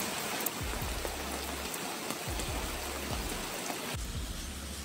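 Steady hiss of heavy rain falling on a flooded street and pavement, with a low drone underneath that drops out briefly a few times.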